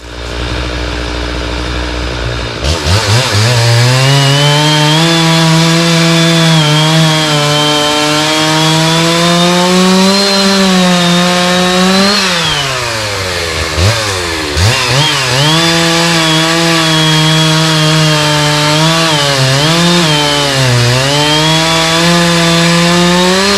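Stihl MS 660 two-stroke chainsaw with a 32-inch bar idling low, then opening up to full throttle about two and a half seconds in and cutting through a large downed trunk. The engine pitch sags several times as the chain bogs in the wood, deepest around the middle, and climbs back each time.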